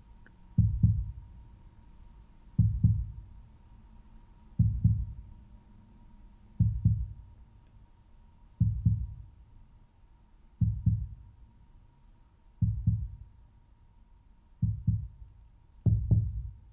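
Slow heartbeat sound: a low double thump, lub-dub, about every two seconds, nine beats in all. A faint steady high tone sits underneath.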